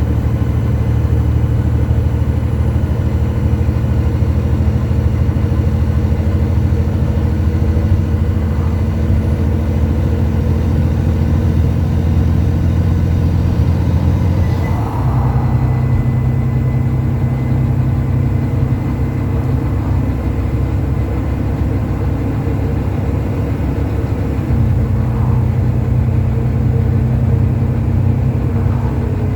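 Volvo B9TL double-decker bus's six-cylinder diesel engine running under way, heard from inside the bus. Its deep, steady engine note shifts abruptly in pitch about halfway through and again near the end.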